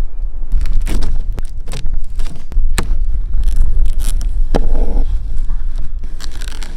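Cardboard box being handled and opened: scattered scrapes, crackles and sharp knocks over a steady low rumble.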